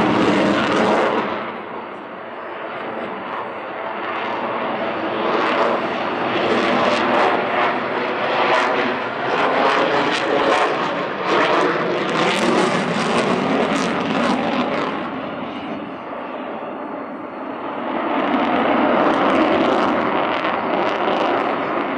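Sukhoi Su-35S fighter's twin AL-41F1S turbofan jet engines roaring as it manoeuvres overhead. The roar dips after a couple of seconds, turns ragged and crackling through the middle stretch, then fades and swells up loud again near the end.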